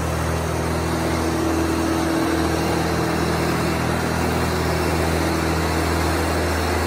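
Morbark Tornado 15 brush chipper's engine running steadily at a constant speed.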